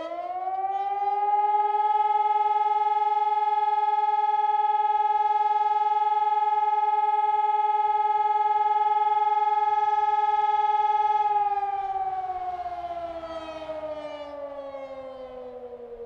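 Hörmann ECI 600 electronic mast siren sounding a test alarm: its tone winds up quickly to a steady pitch, holds for about eleven seconds, then slowly winds down in pitch.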